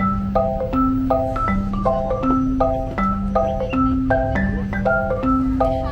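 Background music: a looping mallet-percussion tune of short struck chords over a bass that alternates between two notes.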